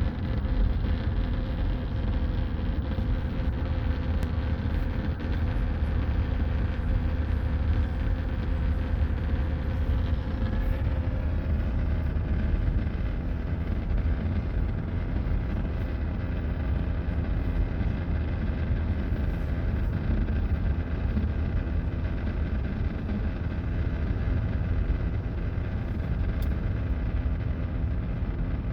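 2017 Ford Explorer running, a steady low rumble with a thin, steady buzzing tone over it: the unexplained buzzing noise the owner is recording.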